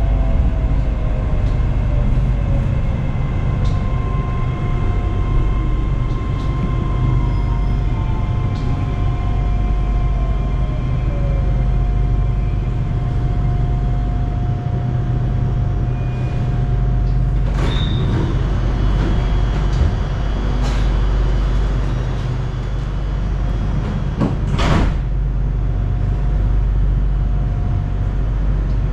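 SRT Red Line electric commuter train: a steady low rumble and hum of the train, with an electric whine gliding down in pitch over the first half, and two short sharp knocks about 18 and 25 seconds in.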